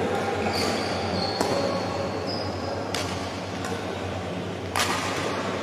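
Badminton rally in an indoor hall: four sharp racket strikes on the shuttlecock over about four seconds, the last the loudest, with a high squeak of court shoes on the floor early on, over a steady low hum.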